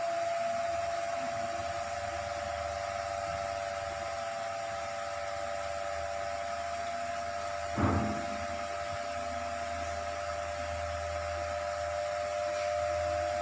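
Steady hum and whine of an electric motor running, over an even hiss. A single short knock about eight seconds in.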